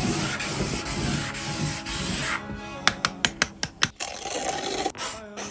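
Felt-tip marker scribbling hard across paper in quick back-and-forth strokes, each stroke a loud scratch. About two and a half seconds in the scribbling stops, followed by a quick run of about seven sharp clicks and then a rustle of paper as a spiral-bound sketchbook is handled.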